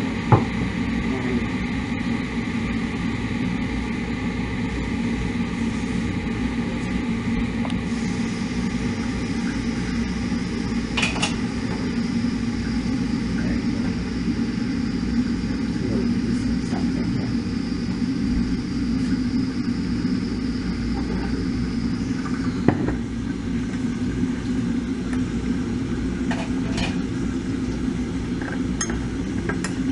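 Steady low hum of a running kitchen appliance, with a faint high whine that stops about two-thirds of the way through. A few short clinks of dishes are heard at the sink.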